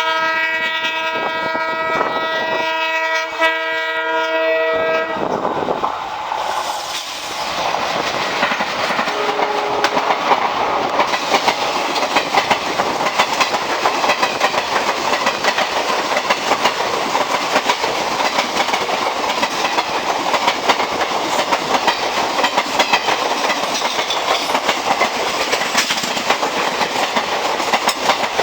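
WDM3D diesel locomotive's multi-tone horn sounding a long chord for about five seconds. Then the express train rushes past at speed, with its wheels clicking rapidly over the rail joints and its coaches rattling.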